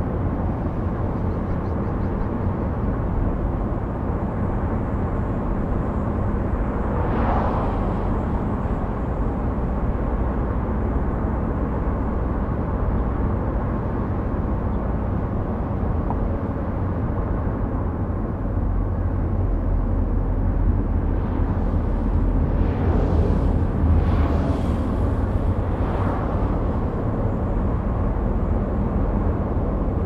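Steady low road and engine rumble of a car driving, with brief whooshes of passing traffic about a quarter of the way in and three more in quick succession in the last third.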